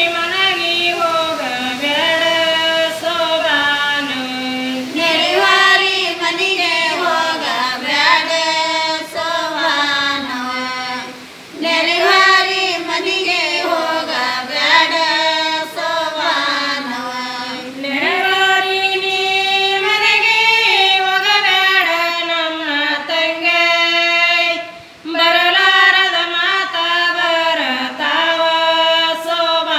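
Women's voices singing a Kannada sobane folk song without accompaniment, in long held phrases with short breaths between them.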